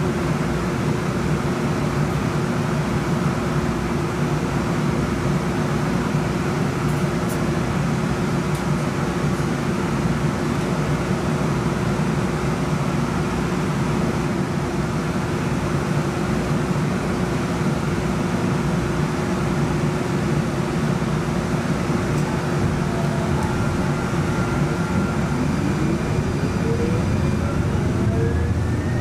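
Cabin of a Siemens S70 electric streetcar: a steady hum and rumble while it stands. About 24 s in, a whine starts low and rises steadily in pitch as the traction motors pull the car away.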